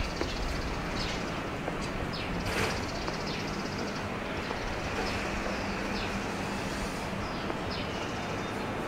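Outdoor ambience: a steady hum of passing traffic, with a low engine drone through the middle, and birds giving short, high, falling chirps about once a second.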